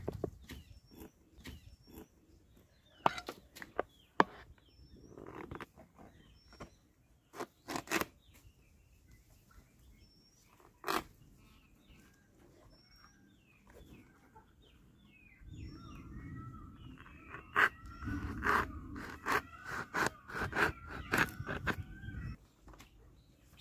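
Dry areca nut leaf sheath crackling and clicking as it is handled, folded and pinned into a cap, with sharp knocks scattered through. Birds chirp in the background, more busily in the last several seconds.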